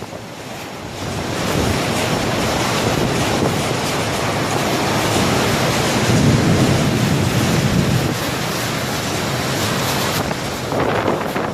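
Tropical storm wind blowing hard and buffeting the microphone over a steady rush of surf. The noise swells about a second in, with the heaviest gust near the middle.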